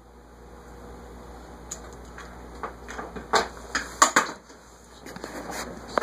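Camera handling noise as the camera is passed from hand to hand: a scatter of knocks, clicks and rustles, the loudest a little past three seconds in and again about four seconds in. Under it runs the steady low hum of a ceiling fan spinning on high.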